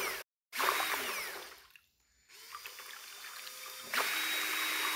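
A drill spins an impeller on a shaft in a bucket of water, whirring and churning the water. The sound comes in short runs broken by brief silences, with the pitch falling away once, and is louder and steady near the end.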